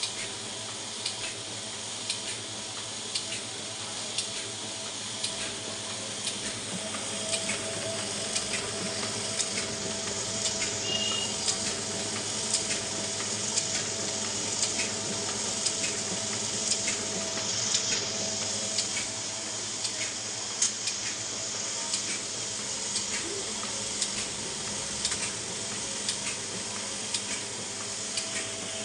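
Ryobi 3302H two-colour sheetfed offset printing press running: a steady mechanical hiss and whir with a regular run of clicks from the sheet feeding and rollers.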